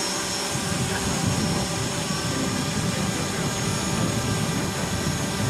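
Several small quadcopter drones flying together overhead, their propellers making a steady whine of many overlapping tones.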